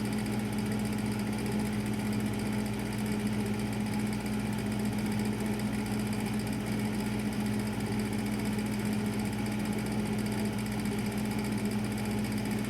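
Kenmore refrigerator's R-12 compressor running just after start-up: a steady, even hum.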